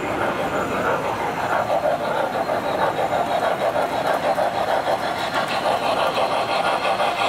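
Tinplate standard gauge toy steam locomotive and its cars running on three-rail track: a steady whirr of the electric motor and gears with a fast metallic rattle of the wheels on the tin rails.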